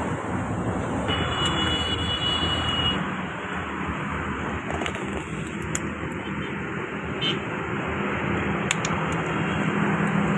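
A motor vehicle running: a steady low engine hum under a noisy rush of road or running noise.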